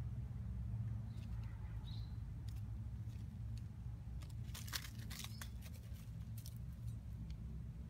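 A cat scuffling in dry soil and leaves as it lunges at a praying mantis: a quick cluster of scratchy rustles and clicks about halfway through, with a few scattered ticks before it, over a steady low hum.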